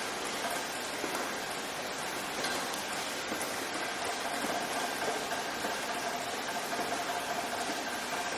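Steady rain falling, an even hiss, with a faint steady hum underneath that grows a little stronger from about halfway.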